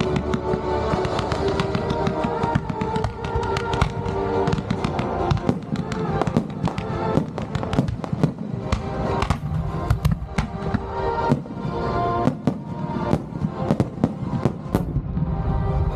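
Fireworks launching and bursting in a rapid string of sharp cracks and bangs, growing denser about five seconds in. Music with steady held notes plays throughout.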